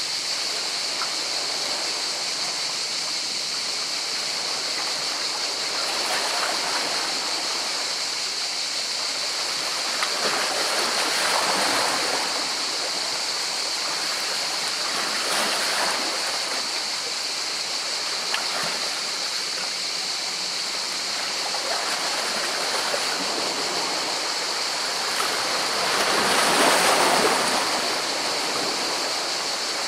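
Sea water washing and breaking over rocks: a steady hiss of surf, with a wave surging in every few seconds and the biggest surge near the end.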